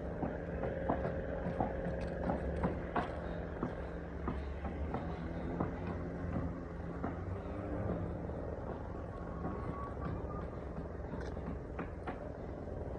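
Street ambience: steady low rumble of vehicle traffic with scattered short clicks and knocks.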